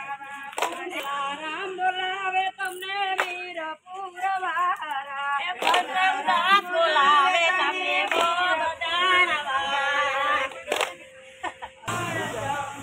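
Women singing a Gujarati garba folk song together, unaccompanied by instruments, with a sharp hand clap about every two and a half seconds.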